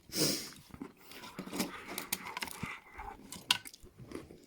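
Faint chewing and wet mouth noises with small clicks, a person eating round chocolates straight off the table without using their hands, with a breathy puff right at the start.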